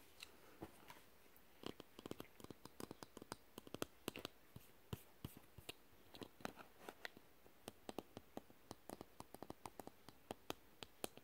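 Fingertips tapping and scratching on thin wooden cutout figures: light, quick, irregular taps, several a second.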